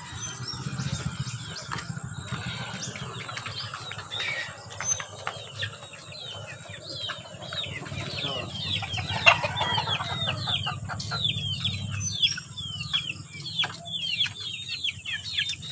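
Chickens at a bamboo coop: wings flapping and rustling as a bird is handled, with quick, high, falling chirps, several a second, through the second half.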